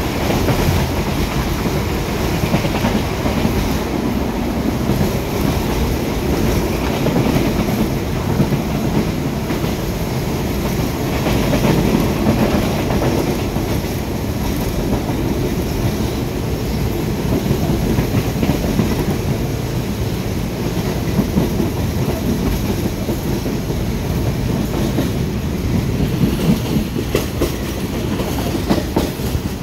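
Express train 71 running at speed, heard from inside a passenger coach at a barred window: a steady loud rumble of wheels on the rails with rail-joint clicks all through.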